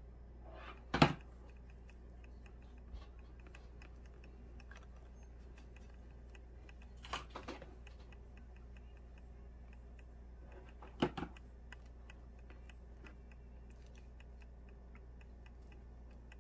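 Light clicks and three sharp knocks as a hot glue gun and small craft pieces are handled on a tabletop cutting mat, the loudest knock about a second in, the others near the middle and about two-thirds through, over a faint low hum.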